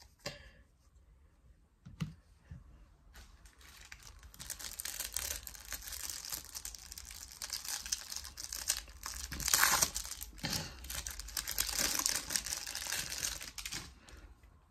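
Foil packet wrapper crinkling and tearing as it is pulled open by hand. It starts about three seconds in, keeps up a dense crackle, and has its sharpest rips a little past the middle.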